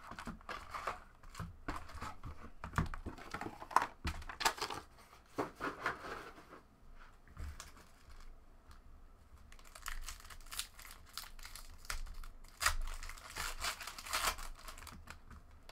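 Foil trading-card packs being handled and torn open: crinkling, rustling and tearing of the wrappers, with light clicks and taps of packs set on the table. Quieter in the middle, busier crinkling over the last few seconds.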